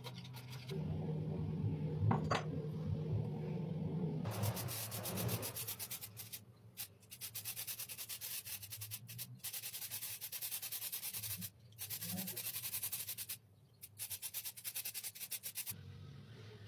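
Abrasive sanding on the steel of a pair of scissors: fast, rhythmic scratchy strokes with a few short pauses. A small electric motor hums steadily for the first few seconds.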